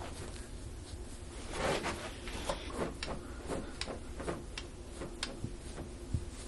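Rustling and handling on a chiropractic treatment table, with small clicks and taps: a louder rustle about one and a half seconds in, then scattered short clicks over the next few seconds, against a steady low room hum.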